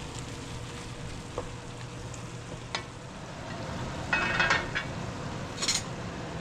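Ground chicken and mushrooms sizzling as they fry in a little oil, stirred with a spoon. A few sharp clicks, and louder scraping of the spoon against the pan a little after halfway and again near the end.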